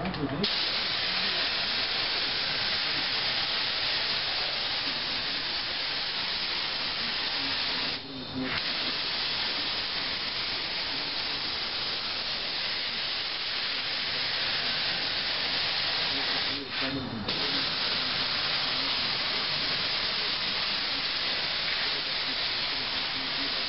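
Compressed-air paint spray gun hissing steadily as it sprays a coat onto a pickup's body, with two short breaks about a third and two-thirds of the way through. The painter suspects the air pressure is set too high, keeping the paint from going on thick.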